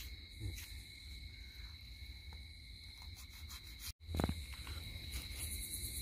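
Crickets trilling steadily as two high unbroken tones, over a low rumble of handling noise and light rustling in dry leaves. The sound drops out for an instant about four seconds in, followed by a short soft thump.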